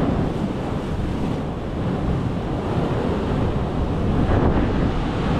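A loud, steady rushing noise, heaviest in the low range, that starts and stops abruptly.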